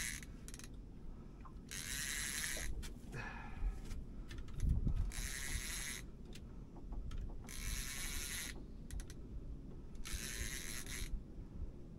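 Fishing reel being wound in short bursts, about four winds each a second or so long with pauses between, as the rod is pumped against a heavy fish (suspected tope) that is pulling steadily rather than running. A dull bump sounds about five seconds in.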